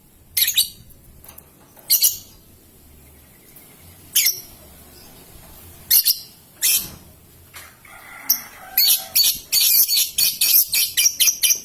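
Young lovebird calling: sharp, high single calls a second or two apart, then from about eight seconds in a fast run of repeated calls, about three to four a second, quickening near the end.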